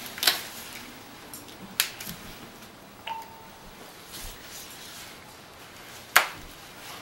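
A phone's single short beep about three seconds in, typical of a Nokia 6131 NFC phone confirming it has read an RFID tag, with a few sharp clicks around it, the loudest about six seconds in.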